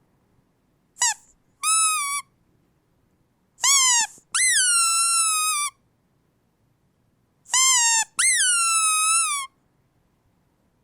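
Rubber squeaky dog toy squeezed and released, giving six pitched squeaks in three pairs, short ones and longer ones of more than a second, with gaps of near silence between.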